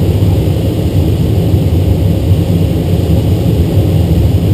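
Steady rush of airflow over a DG-1000 two-seat glider's canopy and fuselage in gliding flight, heard inside the cockpit. The noise is even and sits mostly low.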